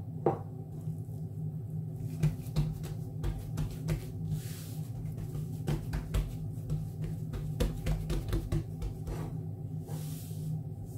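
Hands patting and pressing a ball of risen yeast dough flat on a floured worktop: a scattered run of soft taps and thumps over a steady low hum.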